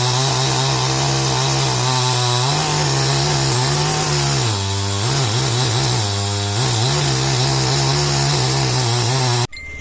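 Two-stroke chainsaw running at high revs and sawing through wood. Its pitch dips twice in the middle, then picks up again, and the sound cuts off suddenly near the end.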